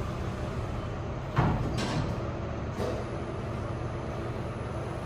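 Otis Gen2 Regen lift car doors sliding shut, with a thump about one and a half seconds in and a lighter knock near three seconds, over the steady low hum of the lift car.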